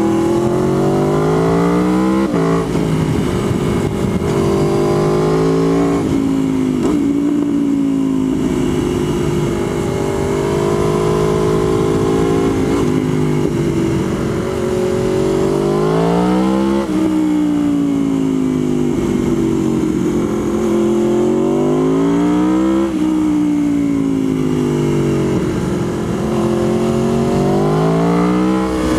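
Motorcycle engine under way, revving up through the gears. The pitch climbs and drops sharply at a gear change about two seconds in and again around seven seconds. Later it rises and sinks slowly a few times as the bike speeds up and slows down.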